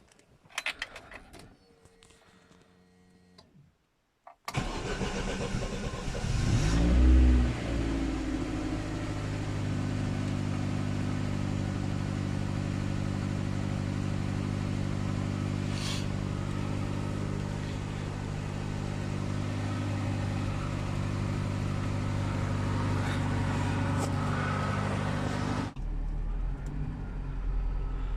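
Lada Niva's engine cranked and catching on a cold winter start, a brief rev about two seconds after it fires, then idling steadily. The sound changes abruptly near the end.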